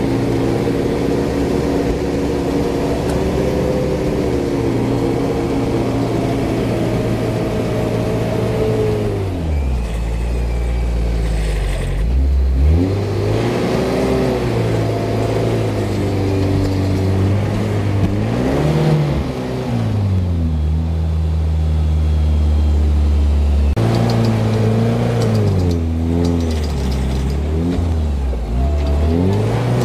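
Off-road 4x4's engine straining under load while being pulled out on a recovery strap. It runs at steady revs for several seconds, then revs up and drops back several times.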